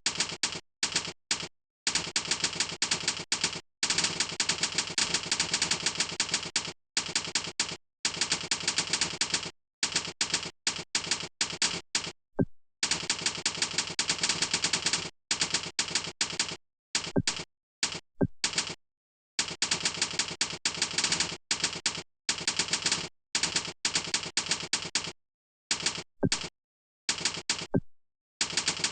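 Fast typing on a computer keyboard: runs of rapid keystroke clicks broken by frequent short pauses.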